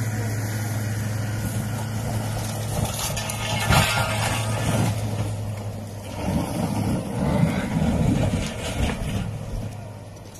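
UAZ cab-over truck running over a steady low hum as it drives out onto river ice. A short sharp noise comes just before four seconds in. From about six seconds in there is rough, uneven splashing and crashing as the truck breaks through the ice into the water.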